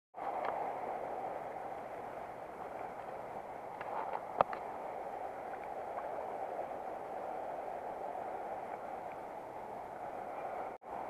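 Steady rush of creek water flowing over a shallow, rocky stretch, with a sharp click about four seconds in.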